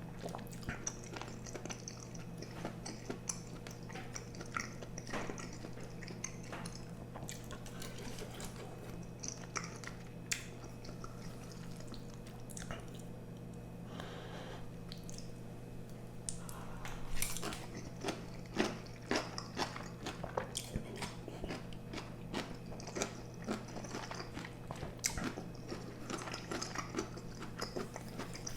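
Close-miked eating sounds of a spicy octopus, tripe and shrimp stew heavy with glass noodles: chewing with many small wet mouth clicks and smacks, growing louder about two-thirds of the way through. A steady low hum runs underneath.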